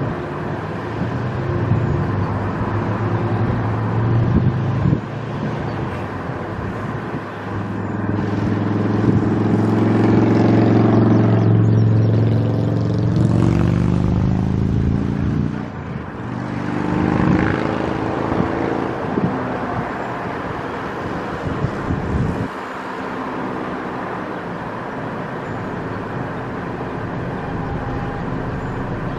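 A motor vehicle passing close by outdoors, its engine hum rising to a peak about ten seconds in and fading again. A second, shorter pass follows, over a steady background rumble.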